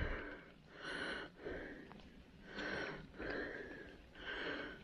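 A man's heavy breathing close to the microphone: quick, noisy breaths in and out, about six in all, roughly one a second.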